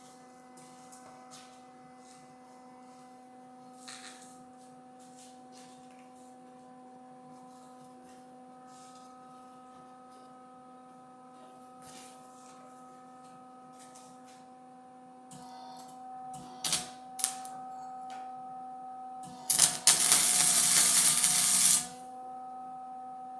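A steady electrical hum with a few scattered clicks, then near the end an arc welder's arc crackling loudly for about two seconds as a weld is struck on a door hinge.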